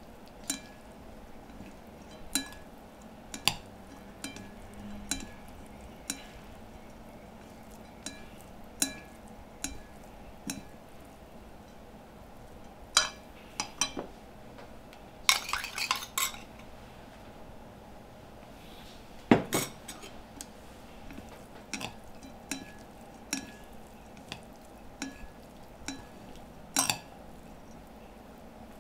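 Scattered clinks and taps of a utensil against a dish as shredded boiled chicken breast is mixed with seasoning, coming one every second or two. About fifteen seconds in there is a short run of rattling and scraping, and a sharper knock follows a few seconds later.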